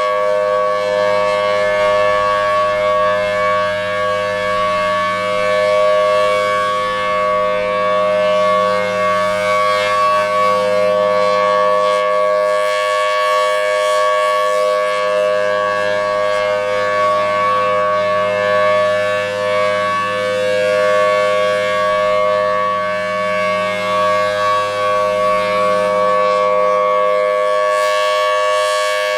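Federal Signal Thunderbolt 1000T outdoor warning siren sounding its Full Alert steady signal: a loud, unwavering dual-tone chord held at constant pitch. It swells and fades slightly in loudness as the rotating head turns.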